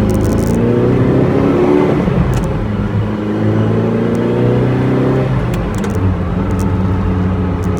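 Freshly overhauled Ferrari 308 V8 engine revved up twice, its pitch climbing and falling back each time, then running steadily near idle.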